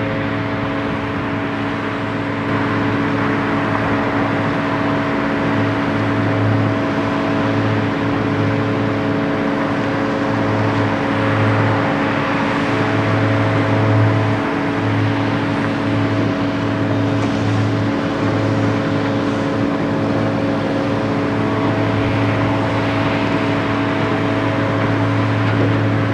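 Heavy diesel engines running steadily: a Caterpillar 324D tracked excavator at work with tipper trucks idling beside it. It is a constant hum with a low drone that swells and dips slightly.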